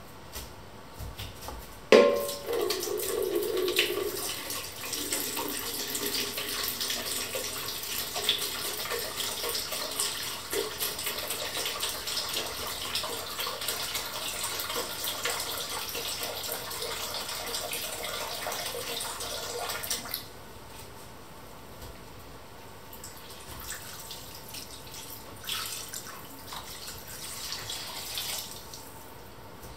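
A kitchen tap runs steadily for about eighteen seconds, starting with a sharp knock and cutting off suddenly. Near the end, liquid is poured into the stew pot.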